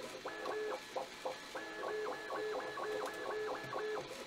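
Bambu Lab A1 3D printer's stepper motors whining as the print head races back and forth in sport mode, the pitch stepping up and down with each short pass, about three passes a second.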